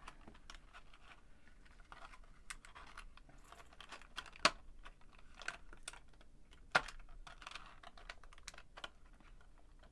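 Hard clear plastic packaging tray clicking and crackling as earbuds and their cord are pried out of it by hand, a run of small irregular clicks with two sharper snaps about four and a half and almost seven seconds in.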